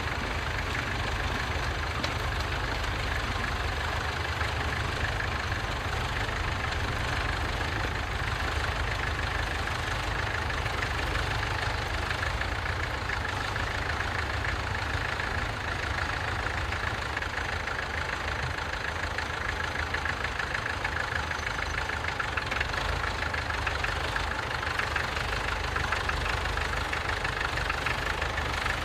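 Tractor engine running steadily with a fast, even beat.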